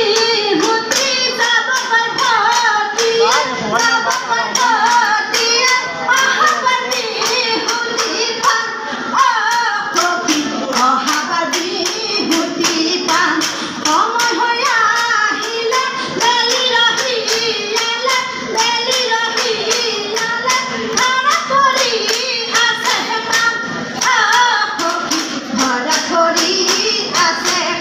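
Women's group singing a Jeng Bihu song in chorus, kept in time by sharp claps about twice a second.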